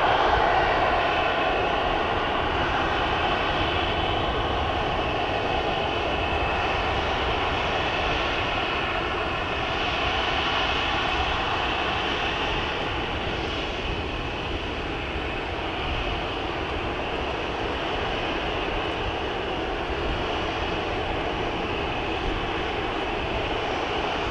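Boeing 737 jet engine running with a steady whine of several high tones over a broad rushing noise, slightly louder in the first couple of seconds and then holding even.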